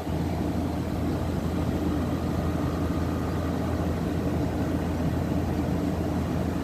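12,000 BTU Frigidaire window air conditioner running on cooling. Its rotary compressor hums steadily under the sound of the fan blowing.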